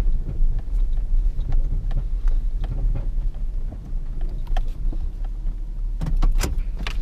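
Truck driving on a dirt road, heard from inside the cab: a steady low rumble of engine and tyres with scattered small knocks and rattles, sharper knocks clustering about six seconds in.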